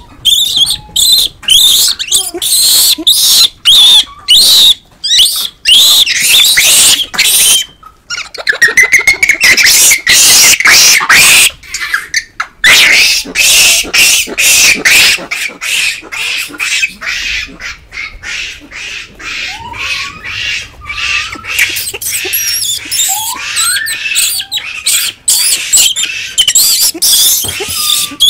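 Japanese macaques in a huddle calling: many shrill squeals and screams overlapping in quick succession for roughly the first half, thinning later to scattered calls and a few short rising calls.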